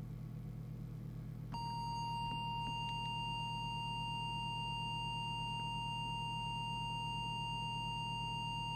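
Steady test-oscillator tone that starts suddenly about a second and a half in and holds, modulating the CB transmitter so its FM deviation can be read on the test set. A low steady hum runs underneath.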